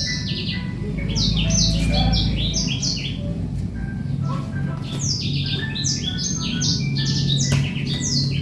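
Many small birds chirping in quick, overlapping clusters of short falling notes, over a steady low hum.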